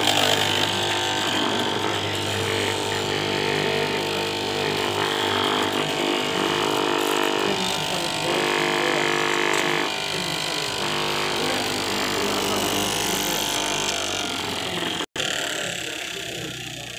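Electric straight-knife cloth cutting machine running with a steady motor hum as its reciprocating blade cuts through stacked layers of lycra fabric. The sound breaks off abruptly about fifteen seconds in, then continues more quietly.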